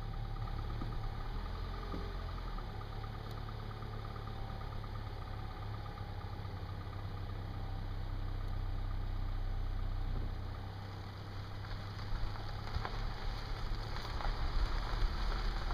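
Car engine idling with a steady low hum. From about twelve seconds in, a louder uneven rumble with scattered knocks as the car begins to move.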